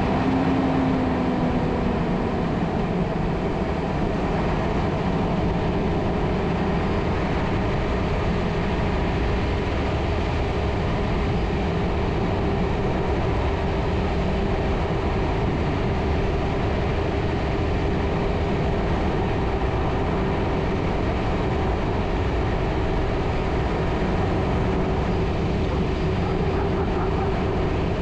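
2006 Hummer H3, with its 3.5-litre inline-five engine, driving steadily across beach sand: an even engine drone mixed with tyre and wind noise.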